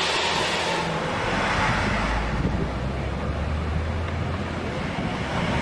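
A bus engine's low rumble builds about a second in, under a steady hiss of wind on the microphone.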